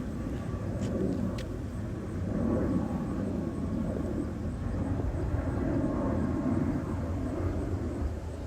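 Distant outdoor tornado warning sirens sounding a steady alert tone for the monthly test, swelling and fading every couple of seconds, over a low steady rumble.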